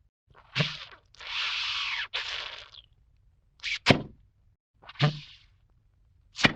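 A run of separate library sound effects: sharp hits and thuds, a few at a time, with a longer hissing sweep about a second in.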